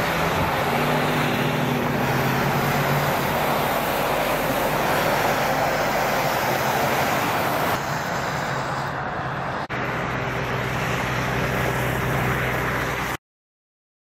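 Motor vehicle engines running under a steady rushing noise of wind and passing traffic. The sound changes abruptly about eight seconds in, drops out for a moment near ten seconds, and stops suddenly shortly before the end.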